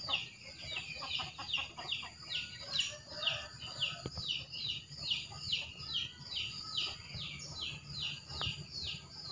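A small bird calling a rapid, unbroken series of short, high, downward-slurred notes, about three a second.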